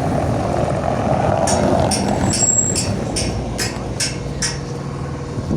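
A run of about eight sharp hammer strikes, roughly two and a half a second, over a steady low rumble of traffic or machinery.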